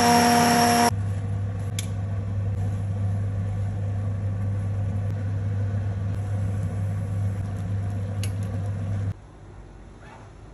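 Immersion (stick) blender motor whining at a steady pitch as it purées vegetable soup in a steel pot, cutting off about a second in. A steady low mechanical hum follows, with two faint clicks, until it drops away near the end.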